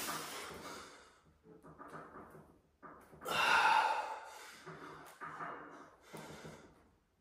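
A man's heavy breaths of effort, about five forceful breaths out in time with the reps of hanging leg raises, the loudest about three seconds in.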